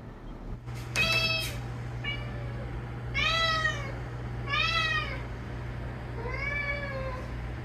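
Domestic cat meowing over and over, about five drawn-out meows a second or so apart, each rising and then falling in pitch, over a steady low hum: the cat is demanding to be let outside.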